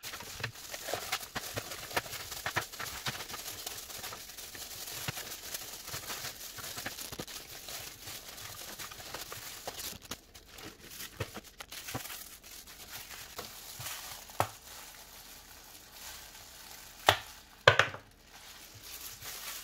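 Plastic zip-lock bag, baking paper and disposable plastic gloves crinkling and rustling as frozen paste pieces are handled, with many small knocks. Near the end, two sharp cracks as frozen cubes are pressed out of a plastic ice cube tray.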